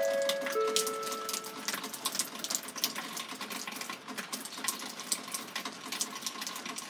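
The last two notes of a descending electronic chime ring out and fade over the first second or two. After that comes an irregular patter of dripping water droplets.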